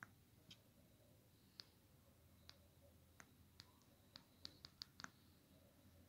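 Faint clicks of buttons on a Dreambox RC20 remote control being pressed one at a time, about a dozen at uneven intervals, with a quicker run of presses near the end.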